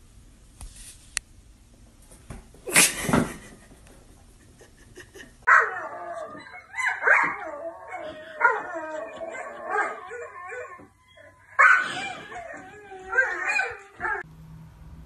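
Dog whining and yowling in long, wavering cries, in two runs from about five seconds in with a short break between them. A single sharp bang about three seconds in comes before the cries.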